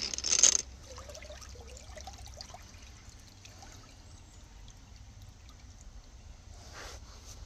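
Angle grinder with a diamond disc grinding cement, its loud high-pitched noise cutting off abruptly about half a second in. After that only a faint trickling sound remains.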